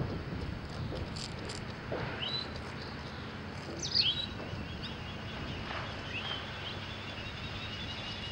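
A bird's short, sharp falling call at the start and again about four seconds in, followed by a run of thin chirps, over a low steady drone from the distant Consolidated PBY Catalina's twin radial engines as the flying boat taxis on the water.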